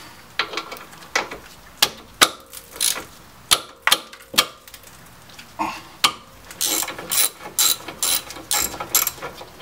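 Socket ratchet clicking as a brake caliper mounting bolt is turned loose. The clicks come irregularly at first, then in a quicker, even run of about four a second near the end.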